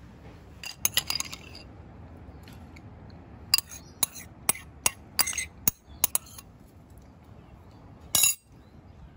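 Stainless steel spoon clinking against a ceramic bowl: a quick cluster of clinks about a second in, then a run of separate sharp clinks from about three and a half to six seconds, and one more short clatter near the end.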